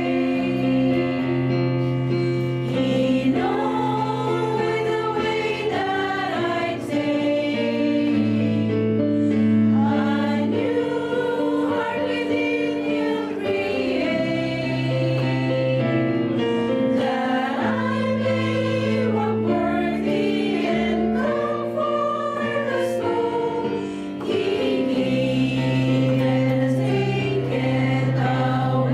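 Women's choir singing a hymn refrain together, accompanied by a keyboard holding low chords underneath.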